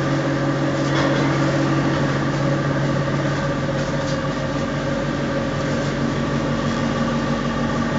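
Sawdust charcoal briquette machine running: its electric motor and screw press give a steady hum with a constant drone and an even rush of mechanical noise.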